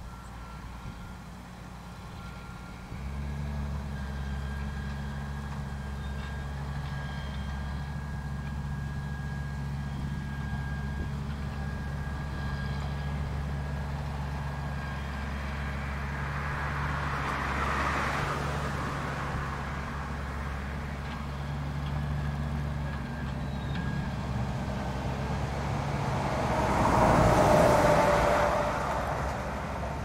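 Grimme Tectron self-propelled potato harvester working along the rows: a steady low engine drone with a faint high whine, stepping up in level about three seconds in. Two swells of rushing noise pass over it, the louder one near the end.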